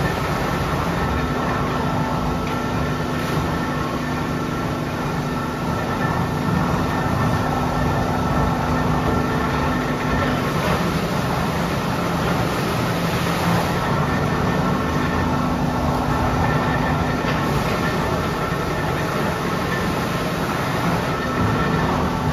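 Tannery machinery running: a steady, heavy mechanical rumble, with a low hum that cuts in and out three times.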